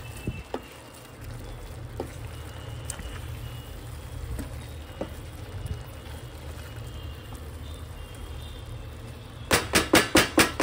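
A spatula stirring and mashing liver and onions in a pot, with faint scrapes over a low steady hum. Near the end comes a quick run of six or seven loud knocks as the spatula is tapped against the pot's rim.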